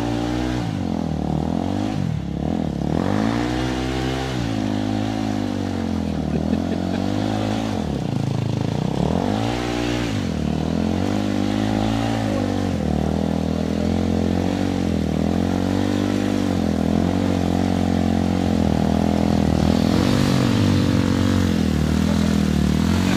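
Dirt bike engines revving up and falling back again and again, every second or two, as the bikes struggle for grip on a slippery mud climb.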